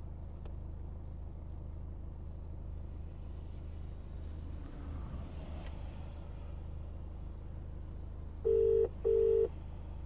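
British-style telephone ringing tone ("brr-brr") played through a Parrot hands-free car kit's speaker: one double ring near the end, as a voice-dialled call rings out at the other end. A steady low hum runs underneath.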